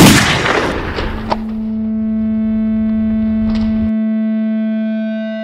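Film soundtrack: a loud sudden hit at the start dies away into a rain-like hiss. About a second in, a steady low electronic hum tone sets in and holds. The hiss cuts off abruptly near four seconds, leaving the drone with higher synthesizer tones layered over it.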